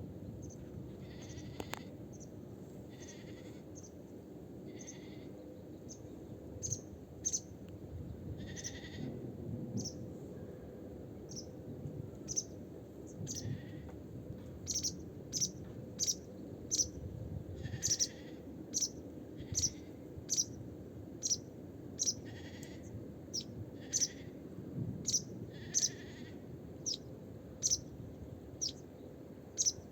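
Animal calls: short, high, sharp calls repeating about once a second and coming faster in the second half, with longer, lower calls in between, over a steady low background noise.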